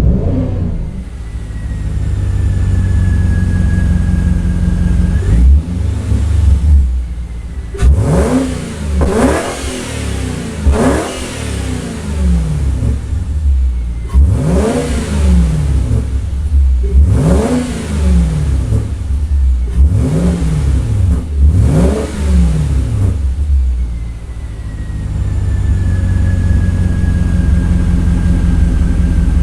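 Volvo S80's 4.4-litre V8 through a Becker aftermarket exhaust, idling and then blipped repeatedly: several quick revs that rise and fall back, before it settles to idle again.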